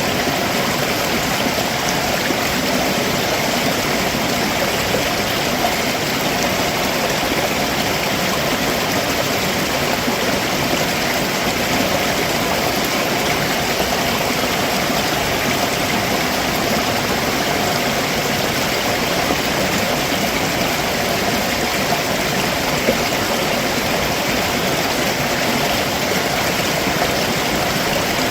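Stream water running over rocks below a waterfall: a steady, even rush of flowing water.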